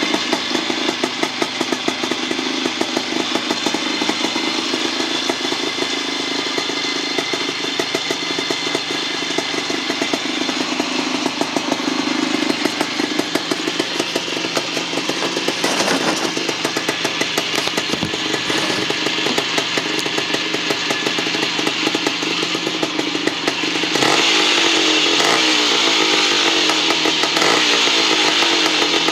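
Freshly rebuilt 1975 Bultaco Sherpa T 350's single-cylinder two-stroke engine running steadily, then picking up revs and getting louder about three-quarters of the way through.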